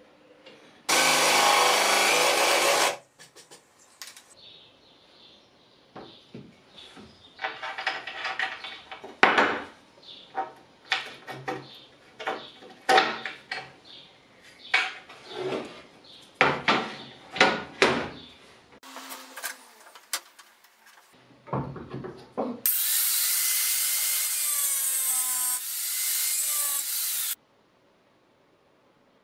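Woodworking at the bench: a power tool runs for about two seconds near the start, then comes a long run of short rubbing and scraping strokes on wood, about one a second, and near the end a power tool runs again for about four and a half seconds before cutting off.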